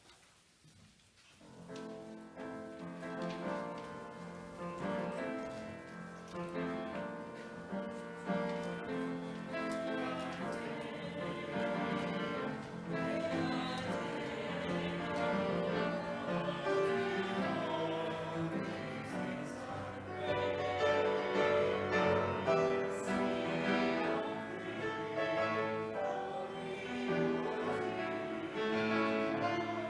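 Singing with piano accompaniment, starting about a second and a half in and going on steadily.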